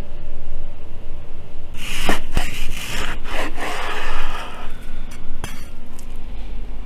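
Large kitchen knife slicing through a raw block of ostrich meat on a wooden cutting board: a few drawn, rasping cutting strokes starting about two seconds in.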